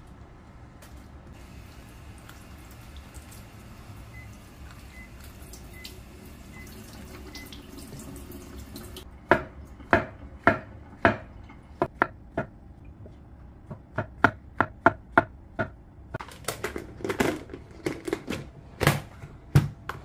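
Chef's knife slicing button mushrooms thinly on a wooden chopping board. From about halfway through, the blade knocks sharply on the board in uneven runs of roughly two strokes a second.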